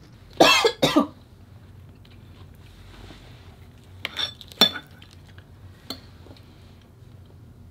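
Two coughs near the start, right after a bite of very spicy noodles. Then faint tableware clatter, with two sharp ringing clinks of a utensil or glass against a dish about four seconds in.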